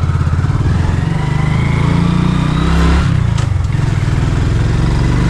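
Motorcycle engine running under way, picking up revs from about a second in and easing off a little before three seconds, with a brief clatter just after.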